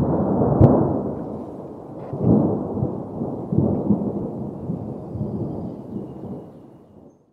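A clap of thunder: a sharp crack about half a second in, then a deep rolling rumble that swells twice more and fades away near the end.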